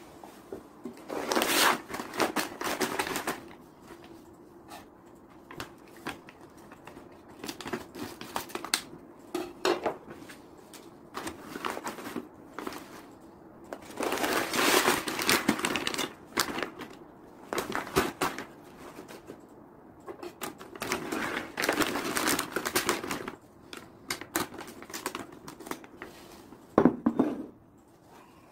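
Plastic cat litter bags crinkling and rustling in irregular bursts as they are handled and shifted on a table, with a sharp knock near the end.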